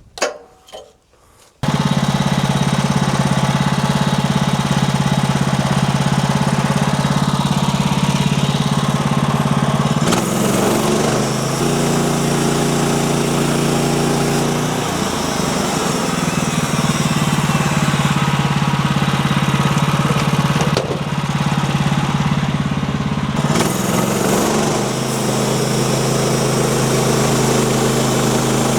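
An engine starts running abruptly about two seconds in and keeps running steadily, its pitch shifting several times.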